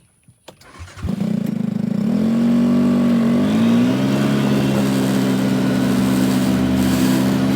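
Vehicle engine that comes in abruptly about a second in, rises in pitch as it revs up over the next couple of seconds, then runs steady and loud.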